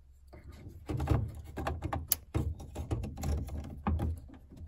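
Plastic wiring connector and harness being handled and plugged in inside a minivan's power sliding door: a run of irregular clicks, knocks and rattles, with one sharp click about two seconds in.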